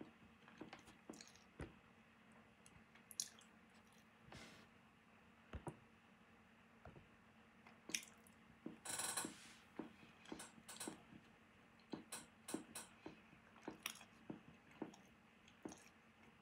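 Faint chewing of a piece of Brossard chocolate-chip brownie: scattered soft mouth clicks and smacks, with a short breathy hiss about nine seconds in.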